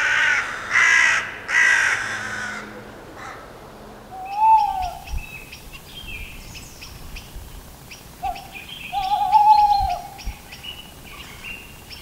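Crows cawing harshly three times in quick succession, scolding a perched owl. Later an owl hoots twice, the second hoot long and drawn out, among scattered short high chirps of small birds.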